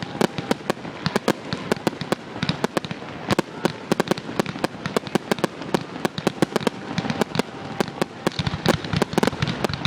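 Fireworks display: a rapid barrage of sharp bangs and crackles, several a second, thickening into a denser, louder volley near the end.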